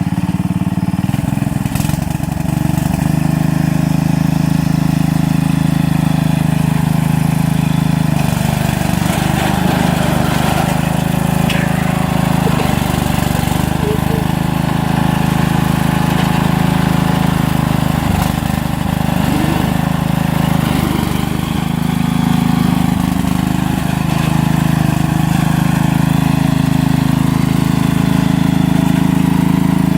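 Engine of a home-built riding mower running steadily as it pushes through brush, with irregular noisier stretches over it around a third of the way in and again a little past the middle.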